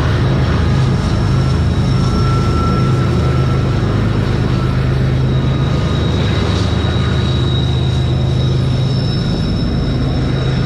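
Diesel locomotives of a freight train running steadily, a deep engine drone under the rumble of the train, with thin high-pitched squeals from the wheels.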